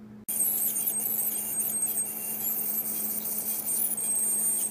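Ultrasonic dental scaler running on a dog's teeth: a steady, high-pitched hiss with a thin high whine, starting suddenly a fraction of a second in.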